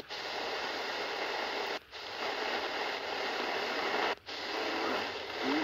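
Shortwave static hiss from a Degen CY-1 portable radio's speaker while it is tuned between stations on shortwave. The hiss cuts out briefly twice, muted as the frequency steps.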